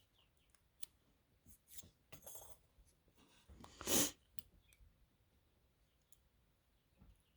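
Faint clicks and light scraping of small metal lock parts being handled as a pin-tumbler lock is taken apart, with one louder scrape about four seconds in.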